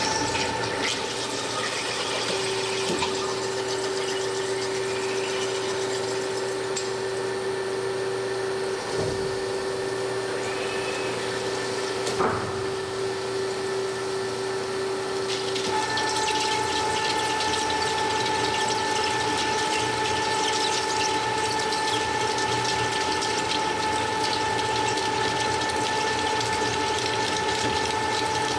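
CNC cutting machine running, a steady mechanical whine of several held tones over a hiss. About two-thirds of the way through the tones shift and the hiss grows brighter, with a short sharp knock a few seconds before.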